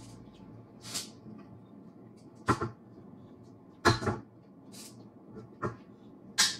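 Close-miked eating sounds: a string of sharp, short bites and crunches, about six, the two loudest about two and a half and four seconds in.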